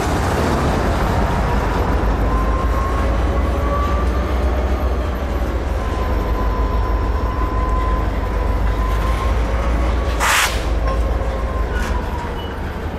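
Norfolk Southern freight train of covered hopper cars rolling past with a steady heavy rumble and a faint wavering wheel squeal. A sharp metallic clank comes about ten seconds in.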